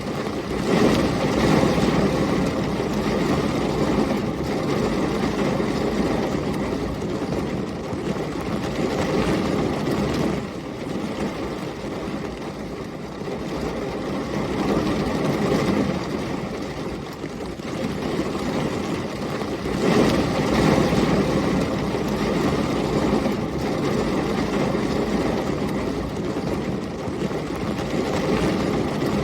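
Heavy thunderstorm ambience: dense rain and storm wind making a continuous low rumble that swells and eases several times, loudest about a second in and again about twenty seconds in.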